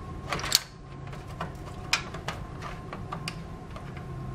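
Computer power-supply cables and their plastic connectors being handled and pushed into place inside a metal PC case: a scraping rustle about half a second in, then a few sharp clicks and taps.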